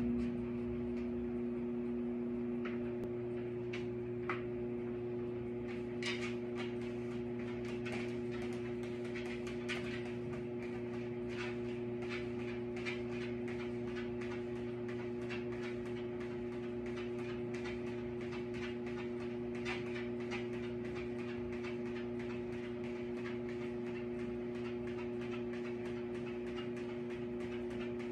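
Treadmill motor running with a steady electric hum, with light irregular ticking from a small dog's claws on the moving belt, most of it in the middle of the stretch.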